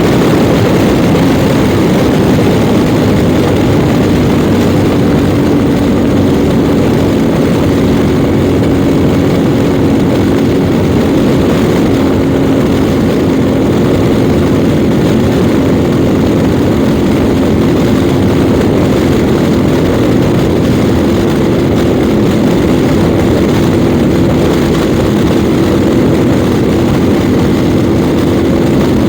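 Yamaha Ténéré 700 World Raid's parallel-twin engine running at a steady cruising speed, its note holding nearly level, under a loud rush of riding wind.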